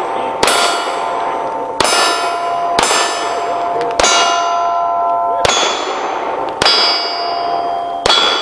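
Seven pistol shots at a steady pace, about one every second and a bit, each followed by the ringing clang of a struck steel target plate.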